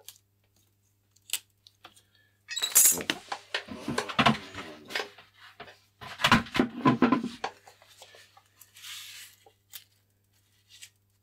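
Hard objects clinking and clattering as they are handled on a workbench, in two busy bursts. Near the end comes a soft rustle of a paper tissue wiping the surface.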